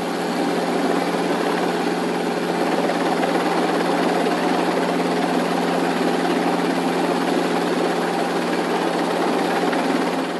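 Drone's propellers running loud and steady: a constant hum over a rushing whir of air, much like a helicopter.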